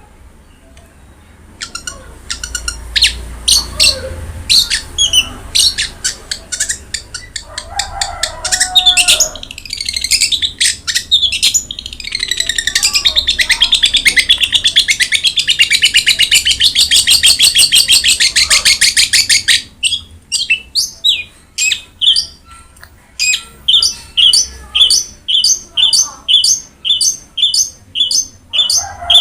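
Long-tailed shrike (cendet) in full song: a varied run of sharp chirps and a harsh lower call, then a long, very fast high trill through the middle, and a series of evenly repeated sharp notes near the end.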